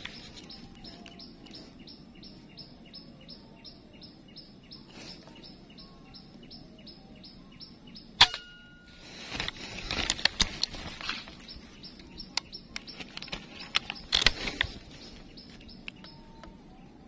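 A single sharp air rifle shot about eight seconds in, with a short ringing tone after it, followed by bursts of rustling. Before the shot, a high chirp repeats about four times a second.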